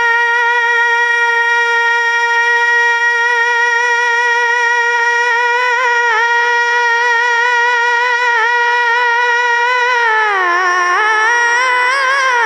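A boy's unaccompanied singing voice through a microphone, holding one long high note for about ten seconds, then dropping in pitch into quick ornamental turns near the end: the drawn-out closing vowel of a naat line.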